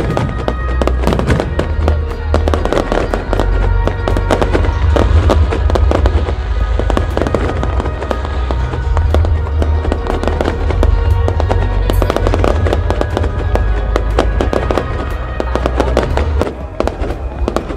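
Aerial fireworks bursting in rapid succession, many sharp bangs and crackles, over loud music and a deep rumble.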